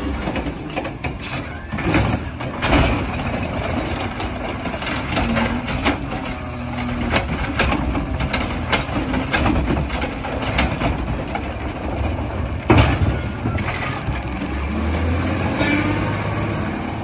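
CNG Peterbilt 320 garbage truck running while its automated side-loader arm lifts and dumps a recycling cart, with knocks and clatter of recyclables falling into the hopper and one sharp bang about three quarters of the way through. The engine rises near the end as the truck moves off.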